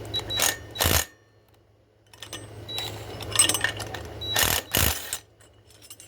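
Impact wrench rattling in short bursts on the flywheel nut of a Predator 420cc engine, working the tight nut loose. There are two bursts in the first second and two louder ones near the end, with lighter clatter of the tool and parts between.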